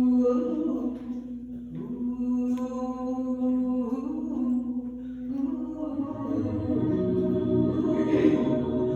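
Voices singing a capella. A long held note sounds with other parts moving above it, and the sound grows fuller and lower from about two-thirds of the way in as more voices join.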